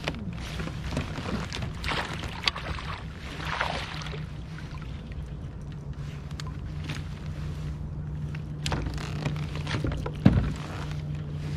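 Water splashing and sloshing over a steady low hum, with a few sharp knocks, the loudest about ten seconds in.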